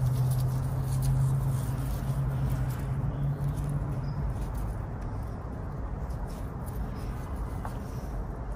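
Leaves and thin branches of a Chinese pistache bonsai rustling and ticking as hands handle and bend them, faint scattered clicks over a steady low hum that fades about four seconds in.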